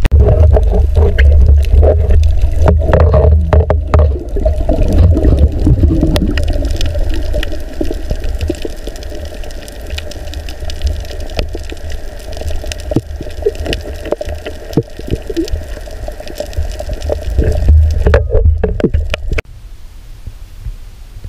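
Water heard through an underwater camera during a night dive: a muffled low rushing and gurgling with scattered clicks and knocks, loudest in the first few seconds and dropping off suddenly near the end.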